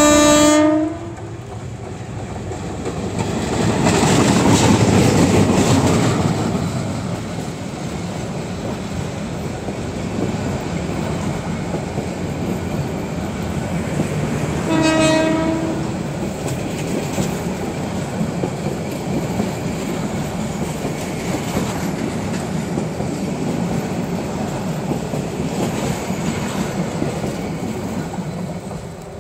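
A diesel locomotive's horn sounds and cuts off about a second in. The locomotive then passes at its loudest a few seconds later. A long line of intercity passenger coaches follows, rolling steadily past on the rails, with a second short horn blast about halfway through.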